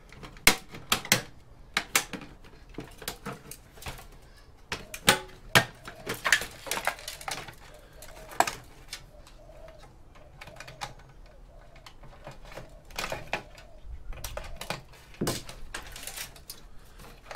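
Irregular clicks, taps and knocks of an old desktop PC's case parts being handled as a cover is taken off. The sharpest knocks come about half a second in and about five seconds in, with quieter handling between.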